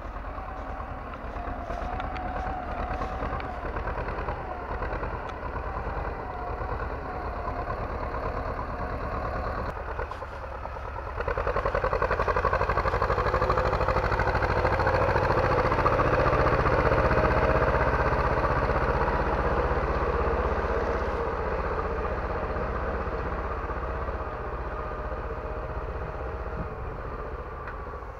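T-25 Vladimirets tractor's two-cylinder air-cooled diesel engine running steadily under load while ploughing. About ten seconds in, the sound grows louder as the tractor passes close, then fades gradually as it drives away.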